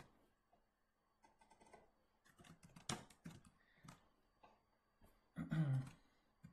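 Faint computer keyboard typing and mouse clicks: scattered single keystrokes with short pauses between them, as figures are copied and entered into a spreadsheet.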